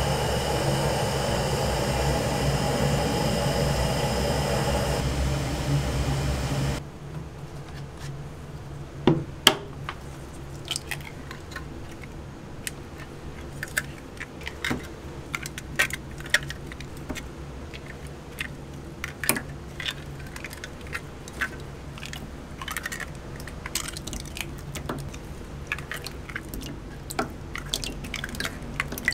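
Eggs cracked by hand one after another into a tub of pooled egg: sharp shell cracks and soft splats at irregular spacing, two louder cracks about nine seconds in. Before that, for the first seven seconds, a louder steady rushing noise that cuts off abruptly.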